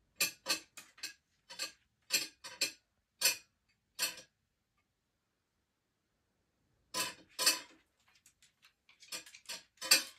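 A metal fork clinking and rattling against a plate as a cat's paw bats at it: a quick run of clinks, a pause of a few seconds, then more clinks near the end.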